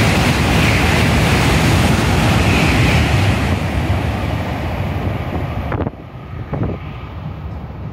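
N700-series Shinkansen passing at speed: a loud, airy rush of wind and wheel noise with a hiss in it, fading after a few seconds as the train draws away. About six seconds in it cuts off abruptly to a much quieter background.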